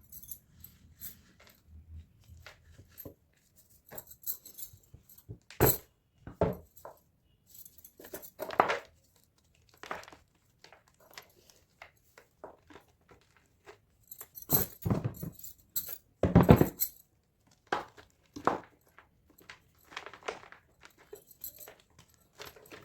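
Blocks of gym chalk being crushed, an irregular series of crunches and crumbles. The loudest clusters come about six seconds in, around eight and a half seconds, and between fifteen and seventeen seconds.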